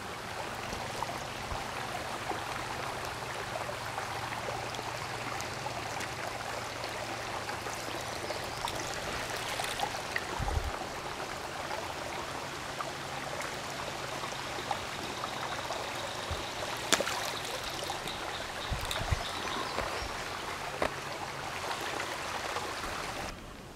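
Steady rushing of flowing creek water, with a few faint knocks, that cuts off abruptly just before the end.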